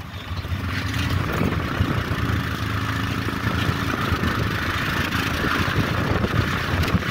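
Auto rickshaw's small engine running steadily under a passenger riding in its open cabin, with road noise.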